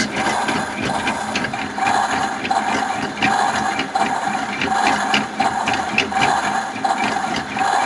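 Little Helper toy washing machine running its wash cycle: a recorded washing-machine sound played through the toy's small speaker, a steady churning with a swish that repeats about every two-thirds of a second.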